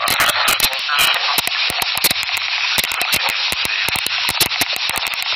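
Dense, irregular crackling clicks over a steady hiss.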